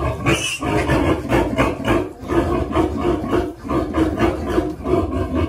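Piglets squealing loudly in rapid, unbroken repeated squeals: the distress squeals of piglets being caught and held.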